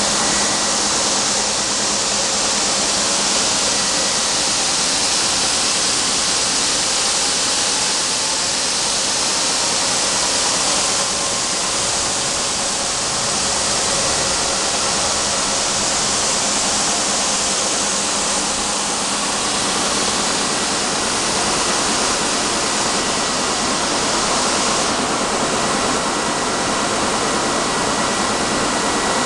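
Carton labeling machine running: its conveyor and motors give a steady hiss with a faint high whine.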